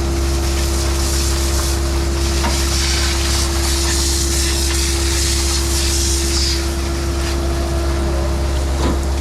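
Skid steer engine running steadily under load as a low, even hum, with a hissing, scraping noise over it that is loudest in the middle few seconds.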